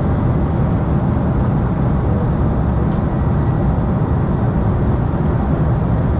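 Steady cabin noise inside an Embraer 195 airliner in flight, heard from a seat by the wing: its General Electric CF34 turbofan engines running and air rushing past the fuselage, deepest in the low end, with a faint steady high tone over it.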